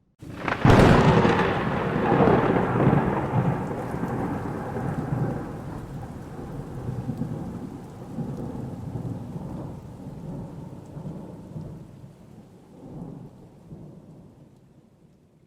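A thunderclap: a sudden loud crack about half a second in, then a long low rumble that swells and ebbs several times and slowly dies away near the end.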